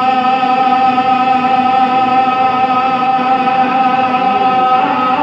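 Unaccompanied naat singing: one long sung note held steady in a melismatic stretch of the line, shifting in pitch near the end.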